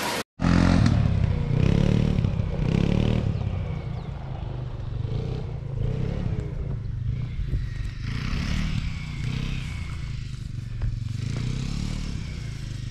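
Engine of a small off-road vehicle running steadily, a little louder in the first few seconds.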